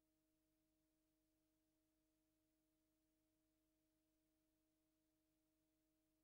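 Near silence, with only a faint steady hum of a few low tones.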